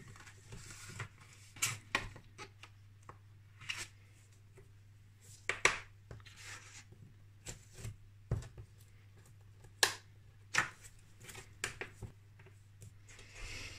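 Paper handling on a stamping platform: a sheet of cardstock slid and positioned, with scattered light taps and clicks as small holder pieces are set down on the plate, a few of them louder.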